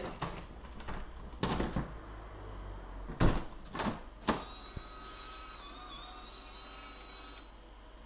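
A door handle and latch clicking and the door knocking shut, followed by the EZVIZ DL01S smart lock's small motor whirring steadily for about three seconds as it turns the key cylinder to relock the door automatically.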